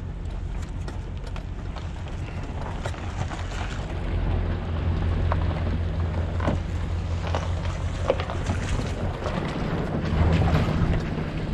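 A 3/4-ton Chevy pickup rolling slowly over a rocky trail: the engine's low hum runs steadily, with scattered sharp knocks and crunches from the tyres on stones. The hum swells about four seconds in and again near the end.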